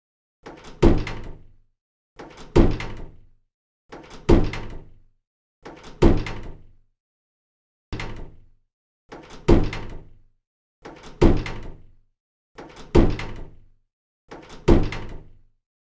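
A door being shut nine times in a row, about every second and a half to two seconds. Most closings start with a soft lead-in followed by a loud, sharp shut that dies away quickly. The fifth is quieter and has only the single hit.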